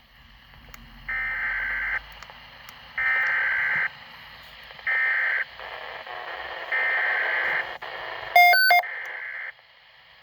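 Emergency alert data bursts over a radio broadcast: a series of harsh, buzzy digital bursts about a second each, with gaps between them, typical of SAME header coding that precedes an emergency alert message. About eight seconds in, a brief, loud run of sharp electronic beeps cuts through.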